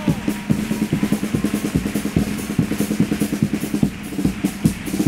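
A carnival chirigota group's instrumental accompaniment: strummed guitars with a bass drum and snare drum keeping a quick, steady beat.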